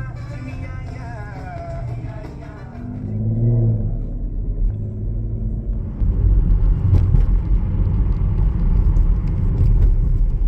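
Car on the road, a steady low rumble of engine and road noise that gets louder about six seconds in, with music fading out at the start.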